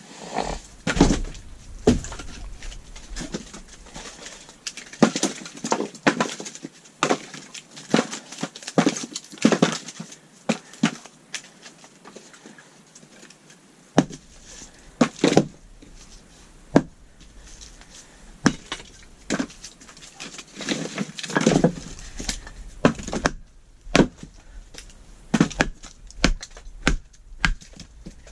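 Pieces of wooden board knocking and clattering irregularly as they are handled and set down in a small wooden cabin, with many sharp knocks spread throughout.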